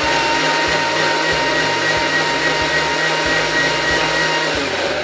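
Thermomix food processor blending salmorejo ingredients (bread, garlic, onion, salt) at full speed, a loud steady whir with a high whine.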